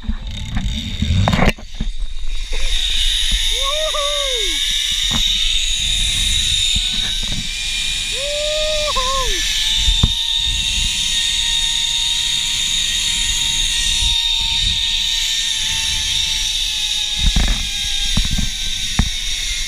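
Zipline trolley pulleys running along a steel cable, a steady high whir that sets in about two seconds in, with wind rumble on the microphone. A voice whoops twice early in the ride, and a few knocks come near the end.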